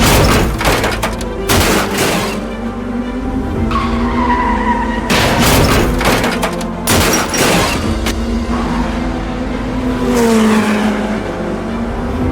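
Dubbed-in race car sound effects: engines running, with tire squeals and several loud crash bangs, the heaviest in the first two seconds and again about five to seven seconds in. Near the end an engine note drops in pitch.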